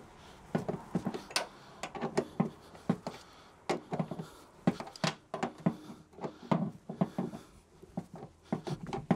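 Irregular clicks and light knocks, a few a second, as a tight seat-mounting bolt is wound back into its thread with a hand tool, working the WD-40 in.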